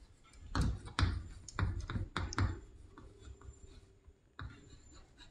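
Writing by hand: a run of irregular short pen strokes and taps on the writing surface, bunched in the first two and a half seconds and sparser after.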